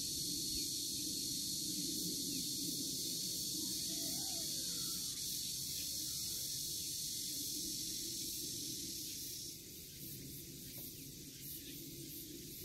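Steady outdoor ambience: an even high-pitched hiss over a lower hum. The hiss drops somewhat in level near the end.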